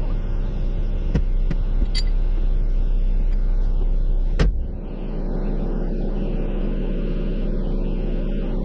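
Vehicle engine idling with a steady low rumble and hum, a few sharp clicks in the first two seconds and a single knock about four and a half seconds in, after which the rumble drops slightly.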